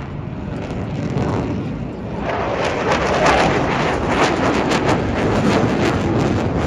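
F/A-18F Super Hornet making a low straight pass. Its twin-engine jet noise builds over about two seconds, then stays loud with a rough, crackling rumble before it starts to fade near the end.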